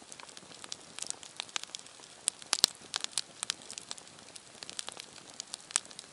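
Small wood campfire crackling with irregular sharp pops; the loudest pop comes about two and a half seconds in.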